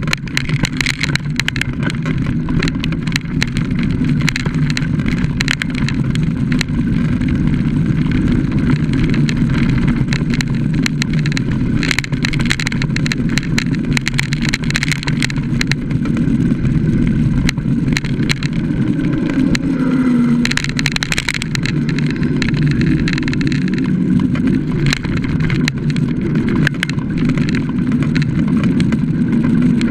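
Bicycle ridden fast down a rough dirt trail, heard from a mounted action camera: steady rumble of wind and tyre noise, with many quick rattles and knocks from the bike and mount over bumps.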